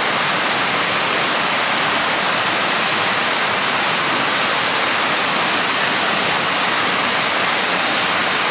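Steady, even rushing of water, unbroken.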